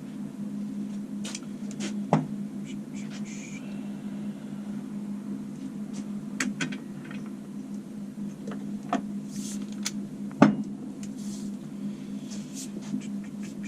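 Scattered clicks and knocks of metal tools and engine parts being handled on a workbench, the loudest about two seconds in and again near ten and a half seconds, over a steady low electrical hum.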